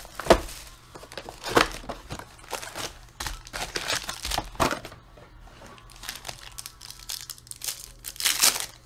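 Foil trading-card pack wrappers (Panini Prizm football packs) crinkling in a series of sharp bursts as the packs are pulled from the box and handled, then a louder crackling tear near the end as one foil pack is ripped open.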